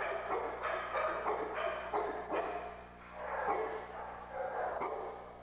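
Pit bulls barking in quick, repeated barks, about two a second, with a short lull about halfway through before the barking starts again.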